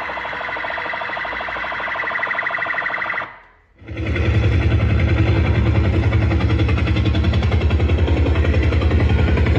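A siren-like electronic alarm sound, pulsing rapidly, fades out about three seconds in. After a brief gap, a loud, low, fast-pulsing rumble like a helicopter or a heavy engine starts and keeps going.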